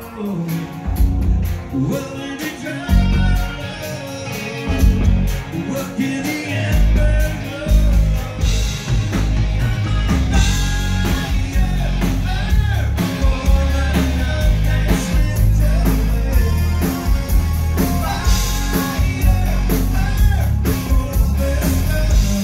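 Live rock band playing loudly: a male lead vocalist singing over electric guitar, bass, keyboards and drums, with a steady heavy low beat.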